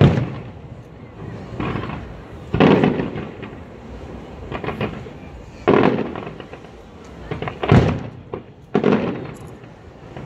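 Aerial firework shells bursting in a display: loud bangs about every two to three seconds, with a few lighter pops between them, each trailing off over about a second.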